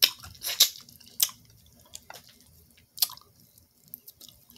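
Close-up wet mouth sounds of a person eating seafood with her fingers: several sharp lip smacks and sucking clicks spaced out over a few seconds, with quiet chewing between.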